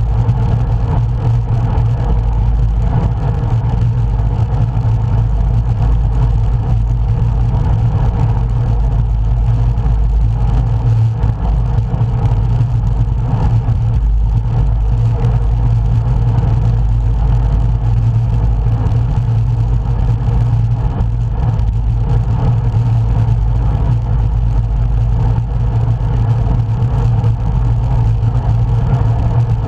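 Steady, loud low rumble of wind and road noise on a camera microphone riding along on a road bike, unbroken throughout.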